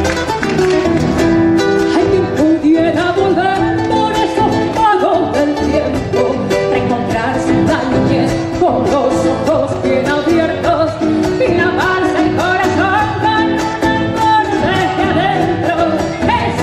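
Instrumental passage of an Argentine folk song: strummed acoustic guitars with a plucked melodic lead line over them.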